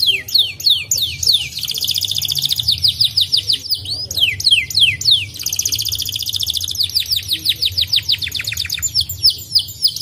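White domestic canary singing: runs of quick falling whistled notes, several a second, broken by fast rolling trills about one and a half seconds in and again about five and a half seconds in. A low steady hum runs underneath.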